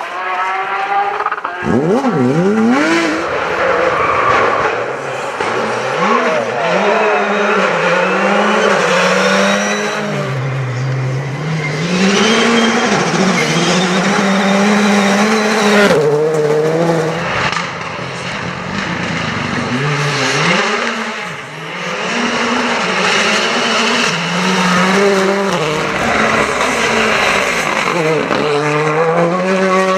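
Rally car engines revving hard and changing gear, the engine pitch climbing and dropping again and again as the cars accelerate and brake through stages.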